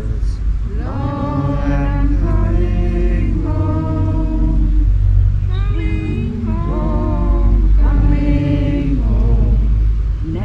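A group of mourners singing a hymn at the graveside in slow, held notes, with a steady low rumble underneath.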